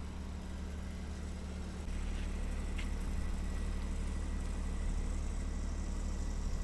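A steady low mechanical hum, like an idling engine or motor, that gets a little louder about two seconds in, with a couple of faint ticks.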